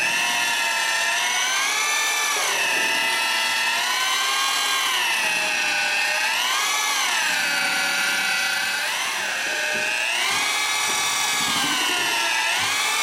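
Heavy-duty variable-speed electric drill turning a squirrel-cage mixing paddle through a 5-gallon bucket of drywall joint compound. The motor whine rises and falls several times as the drill is sped up and slowed down.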